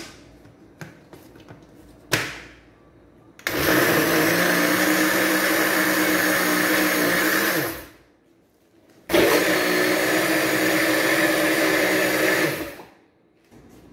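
Red countertop electric blender run twice, about four seconds each with a short pause between, blending a milky mixture; each time the motor winds down with a falling pitch. A click at the start and a sharp knock about two seconds in come before the first run.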